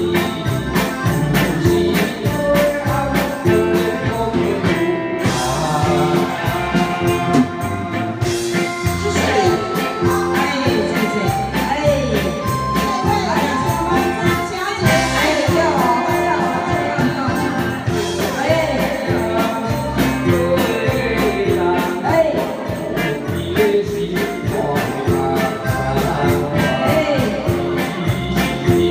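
Live band of keyboard, electric guitar and drum kit playing a song over a steady beat, with a woman and a man singing into microphones.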